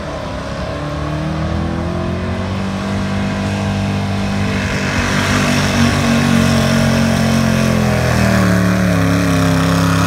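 Ford big-block V8 in a gas pickup at high revs under full load, pulling a weight sled. The revs climb over the first second or so, then hold steady while the engine grows louder as the truck comes closer.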